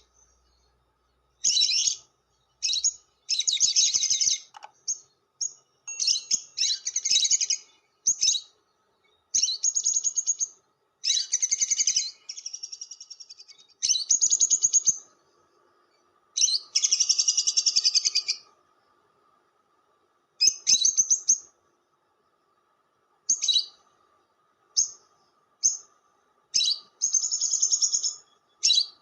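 Lovebird giving harsh, rapidly pulsed high-pitched chattering calls in a series of short bursts of up to about two seconds, with brief silent gaps between them.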